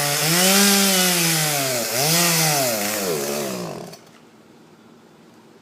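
Two-stroke chainsaw running in a tree cut, its engine speed dipping and recovering several times as it loads in the wood, then cutting out about four seconds in.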